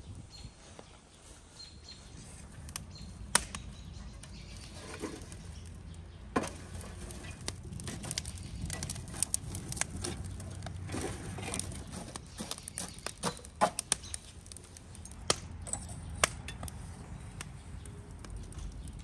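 Crackling and sharp clicks of burning wood embers being raked and shovelled with a metal shovel in an open brick stove, over a steady low rumble, with a few louder knocks in the second half.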